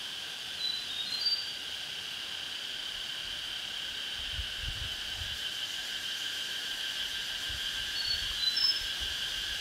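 Steady insect chorus, with a few short high chirps about a second in and again near the end.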